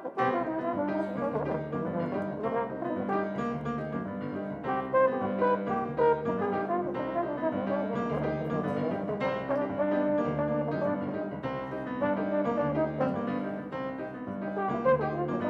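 Trombone playing a melodic instrumental passage over piano accompaniment.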